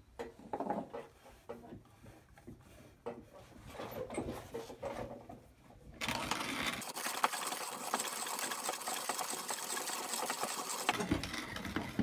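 Hand-cranked 1930s manual conical burr coffee grinder grinding coffee beans with its burrs set just touching, on the finest setting. Lighter clicks and rattles come first, then from about halfway in a dense, continuous crunching of beans between the burrs that stops about a second before the end.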